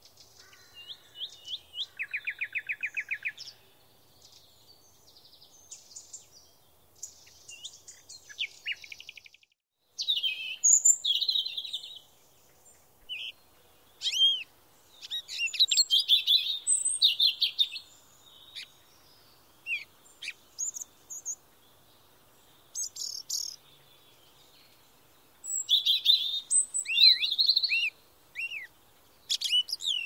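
Songbirds singing in a mixed chorus of chirps, short whistled phrases and trills. A fast, even trill about two seconds in is followed by a run of varied calls, with a sudden break about nine and a half seconds in.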